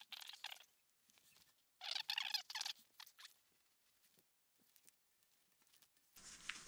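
Felt padding strips for a bed frame being pulled apart by hand. There are two short bursts of squeaky crackling, one at the start and one about two seconds in, with faint handling clicks between them.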